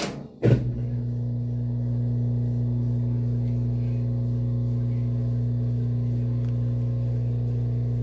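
Maytag top-load washing machine running with a steady low electric hum, loaded with towels. Two sharp clicks come at the very start and about half a second in.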